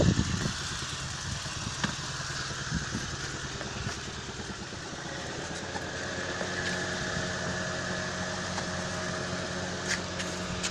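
Homemade karakat swamp buggy's two-cylinder Oka car engine running steadily at idle.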